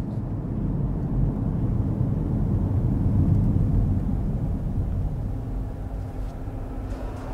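Road and engine noise inside a moving car's cabin: a steady low rumble that grows a little louder midway and eases off toward the end.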